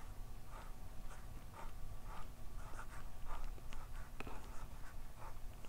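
Handwriting on the paper page of an exercise book: the word 'alphabet' being written as a series of short, soft scratching strokes, about two a second, with a couple of sharp ticks a little past halfway.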